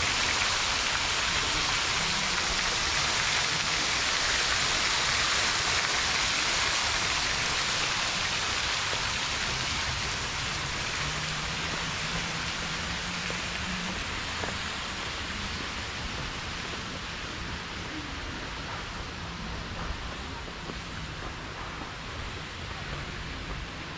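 Water splashing and rushing in a fountain, a steady hiss that slowly fades as the fountain falls behind, with faint voices underneath.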